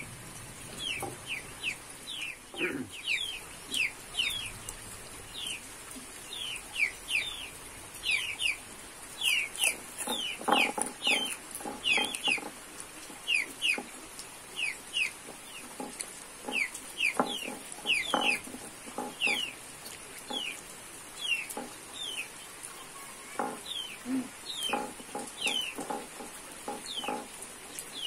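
Chickens clucking now and then among many short, high, falling peeps that keep coming, the sound of a hen with chicks.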